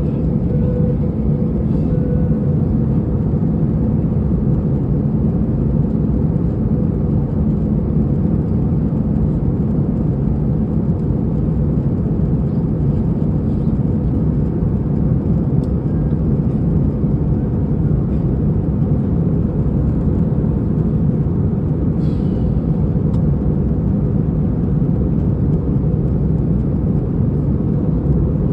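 Steady in-flight cabin noise of a jet airliner: an even, unbroken rumble and whir of engines and airflow heard from inside the cabin.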